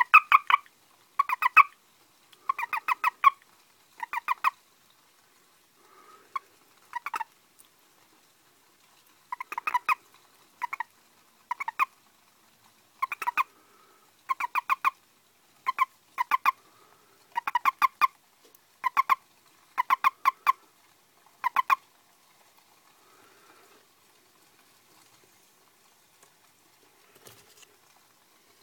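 Asian common toad (Duttaphrynus melanostictus) croaking while held in the hand: a series of about seventeen short calls, each a quick buzzy train of pulses, roughly one a second. They break off about three-quarters of the way through. Calls given by a toad held like this are typical of a male's release call.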